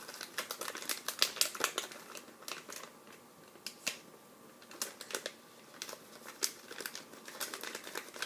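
Plastic packaging crinkling, with irregular sharp clicks and crackles, as a boxed toy figure is opened and handled; a quieter spell comes midway.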